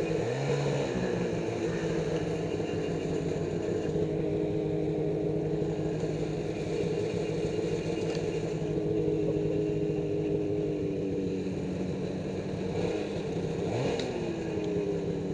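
Ski-Doo REV XP Summit snowmobile's two-stroke engine idling steadily, with a brief blip of the throttle just after the start and another near the end.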